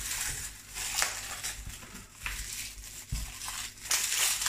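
Thin plastic wrap crinkling and rustling as it is pulled off a pizza, in a run of irregular bursts that are loudest near the end.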